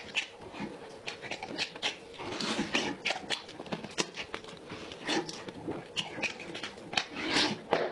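Close-miked chewing and lip-smacking as a man gnaws meat off a spicy goat rib bone: irregular wet clicks and smacks, several a second, with a couple of longer sucking sounds.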